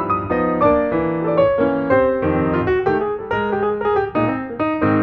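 Background piano music, a steady run of notes struck a few times a second.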